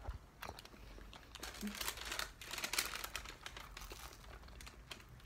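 Paper pastry bag crinkling and rustling as a croissant sandwich is held in it and bitten into, mostly between about one and a half and three and a half seconds in.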